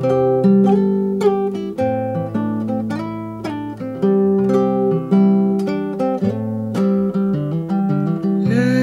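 Background music: acoustic guitar playing plucked single notes over held bass notes, with no singing.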